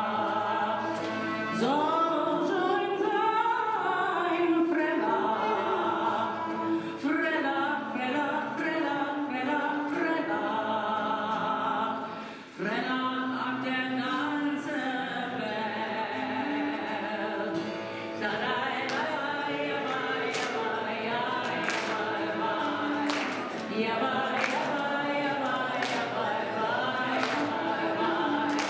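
A woman singing a cantorial melody solo at a microphone, with a short break about twelve seconds in.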